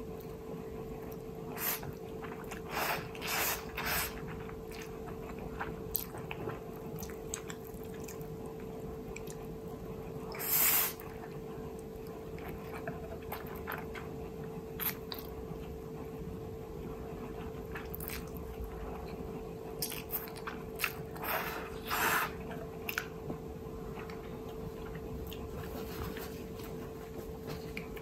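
Close-up eating sounds of a mouthful of Indomie Mi Goreng fried instant noodles being chewed and slurped: scattered short wet mouth sounds, with a louder, longer one about ten seconds in and a cluster of them a little past the twenty-second mark.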